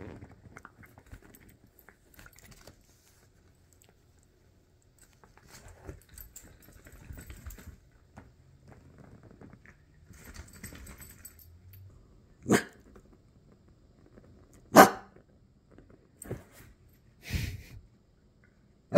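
A dog barking, a few short single barks spaced a second or two apart in the second half, the loudest about three quarters of the way through.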